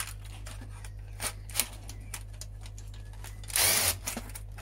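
Light clicks and taps of a cordless drill-driver and hands working inside a plastic CD cassette player casing. About three and a half seconds in comes one brief, loud burst as the DeWalt cordless drill-driver is run on a screw that won't come out.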